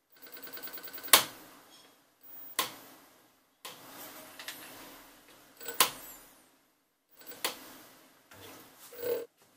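36 V 240 W BLDC hub motor of a mini e-bike ticking as the wheel turns, with a sharp loud click about five times at uneven intervals and a run of fast ticks before the first one. The ticking in some positions is the sign of the fault, which the repairer takes for failed Hall sensors.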